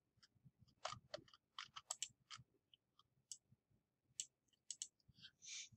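Near silence broken by a dozen or so faint, irregular clicks of a computer mouse, with a soft short hiss near the end.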